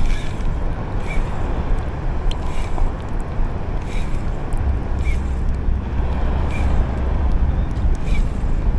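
Wind buffeting an outdoor microphone in a steady low rumble over an even wash of noise, with faint light ticks about once a second.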